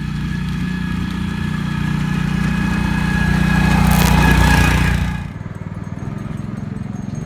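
Tractor engine running steadily while driving an Aera-vator aerator. A rushing noise builds to a peak about four seconds in, then the sound drops abruptly just after five seconds to a quieter engine hum.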